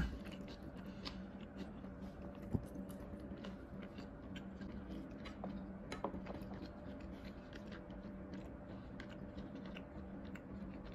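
A person chewing food with small, crisp crunching clicks scattered throughout, and a slightly louder knock about two and a half seconds in and again around six seconds in. A faint steady hum runs underneath.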